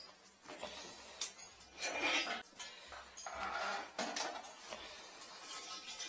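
Irregular clinks, knocks and scrapes of a wire retrieval tool being worked against a porcelain toilet bowl while fishing for an object stuck at the end of the toilet's drain.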